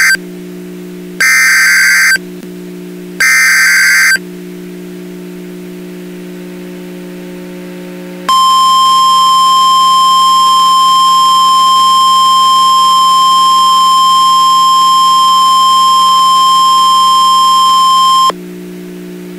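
Emergency Alert System SAME header for a Tropical Storm Warning: a data burst ending just as the sound begins, then two more one-second bursts of high data tones two seconds apart. About eight seconds in, the 1050 Hz NOAA Weather Radio warning alarm sounds as one steady tone for about ten seconds and cuts off. A steady low hum fills the gaps between the tones.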